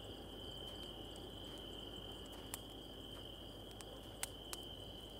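Crickets trilling in a steady, faint, high-pitched chorus, with a few soft clicks now and then.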